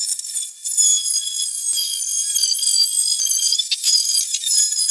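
Power tool spinning a stripper wheel against the truck bed's body filler, a steady high-pitched whine with many ringing overtones.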